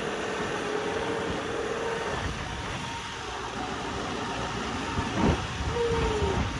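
Tractor engine running, heard as a steady rumble mixed with wind noise on the microphone; its steady hum drops out a little over two seconds in.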